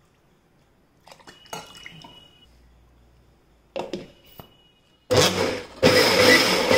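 A few light clicks as a plastic-lidded jar of watery batter is handled and closed, then an electric mixer grinder (mixie) starts about five seconds in, stops for a moment and runs on loudly, grinding oats, rava and rice flour with water into dosa batter.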